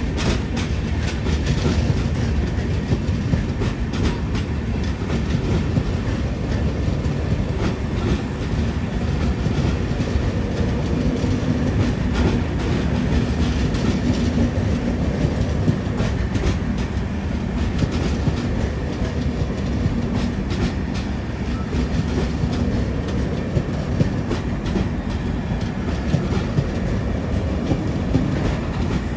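Long passenger train of red LHB coaches passing on the near track: a steady rumble of wheels on the rails, with a continual clickety-clack of clicks running through it.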